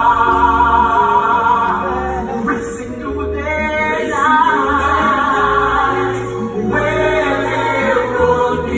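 Stage cast singing a musical theatre number as an ensemble, holding notes with vibrato over an instrumental accompaniment with a bass line.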